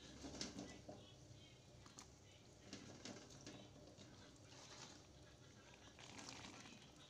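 Faint bubbling of a pot of meatball and green-bean soup simmering, with scattered small clicks and ticks.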